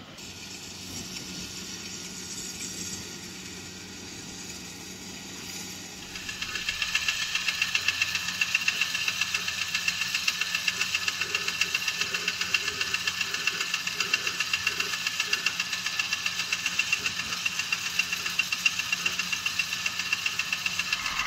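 A two-wheel walking tractor's single-cylinder diesel engine idling with a fast, even knocking beat. For about the first six seconds the engine sound is fainter; it then becomes louder and closer.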